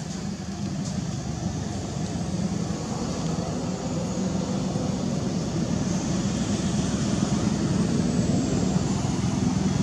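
A steady low engine rumble, slowly growing louder.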